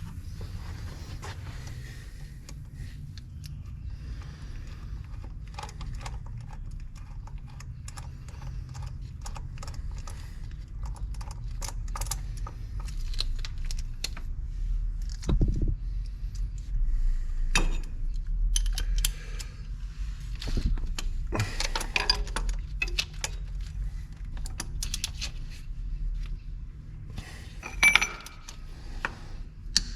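Scattered light metallic clinks and knocks, as of tools or small metal parts being handled, over a steady low hum; they come more thickly in the second half, with one sharper knock near the end.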